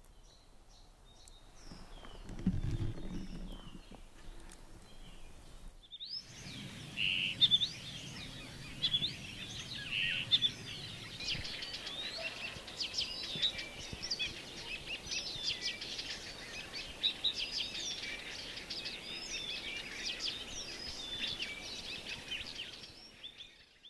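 Many small birds chirping and singing together, a dense chorus of short high calls that starts abruptly about six seconds in and fades out near the end. Before it there is only a faint low rumble.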